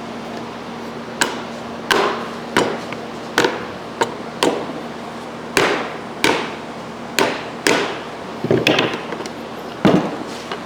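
Repeated sharp knocks, about a dozen at an uneven pace with a quick flurry near the end, as a part of an InSinkErator garbage disposal is struck to snap it into place; the part is not seating fully.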